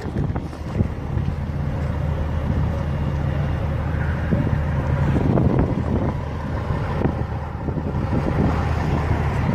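An engine running steadily at idle, with wind buffeting the microphone.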